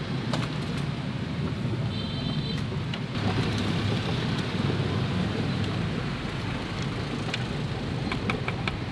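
Steady rushing and rumbling of a large pot of noodle water at a rolling boil, with street traffic behind it. A few light metal clinks of the wire noodle strainer near the end.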